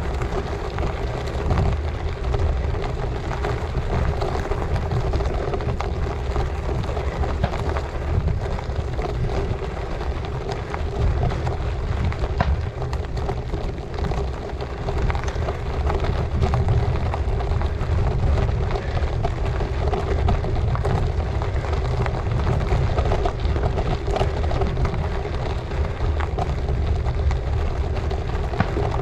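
Gravel bike tyres crunching over a loose gravel track, with a dense patter of small stone ticks, and wind rumbling on the action camera's microphone.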